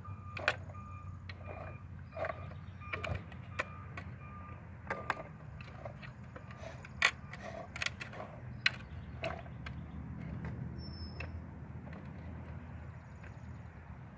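Plastic clicks and knocks from a hand-turned 3D printed gearbox as its shifter is worked toward third gear, its dog clutches and herringbone gears clicking at irregular moments. A brief faint squeak in the first couple of seconds.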